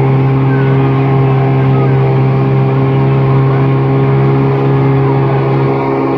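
An engine running steadily at a constant speed: a loud, even drone.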